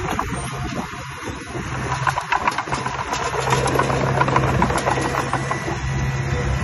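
Heavy construction machine's engine running steadily with light rattling and clanking, getting louder about two seconds in.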